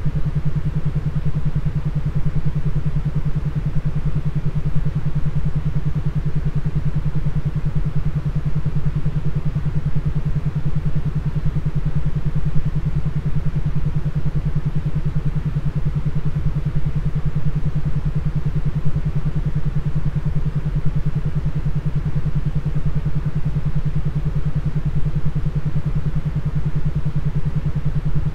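Binaural beat track: a steady low-pitched hum that throbs rapidly and evenly, over a low rumble, without change.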